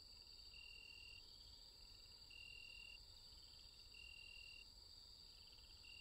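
Faint crickets chirping: a steady high trill, with a lower trill that comes in short pulses of about half a second, one every second and a half or so.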